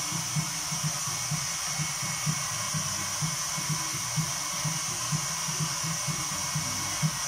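Hand-held hot-air blower running steadily with an even whooshing hiss, drying the water-based ink on a freshly printed nylon umbrella panel. Faint low thumps sound underneath, about two or three a second.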